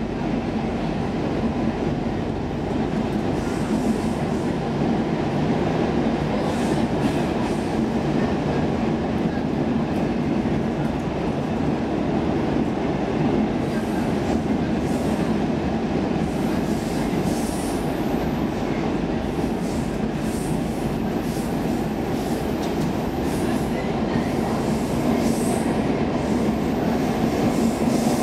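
Stockholm Metro C15 train running through a tunnel, heard from inside the carriage as a steady rumble of wheels and running gear. Light clicks and rattles come and go, more of them in the second half.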